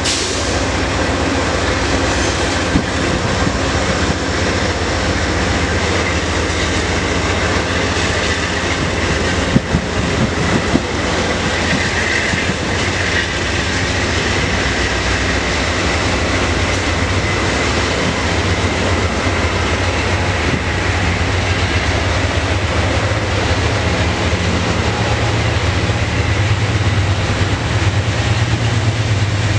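Amtrak Pacific Surfliner bi-level passenger train rolling past on the station tracks: a steady rumble and clatter of wheels over rail. A thin high whine runs through the middle, and a low drone swells near the end.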